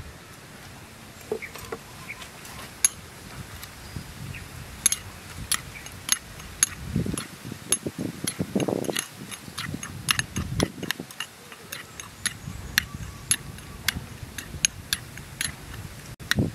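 A metal spoon stirring dipping sauce in a small ceramic bowl, clinking against the sides again and again at an irregular pace.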